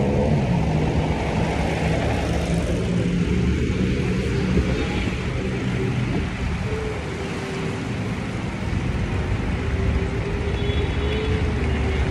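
Wind rumbling over the microphone of a phone carried on a moving bicycle, with a steady drone underneath.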